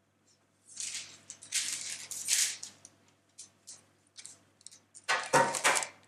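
Baking paper rustling and crinkling as it is handled, in bursts about a second in and a louder one near the end, with a few light clicks between.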